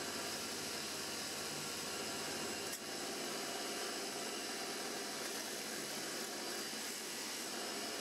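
Electric motor spinning an abrasive grinding wheel: a steady whirring hiss, with a brief dip about three seconds in.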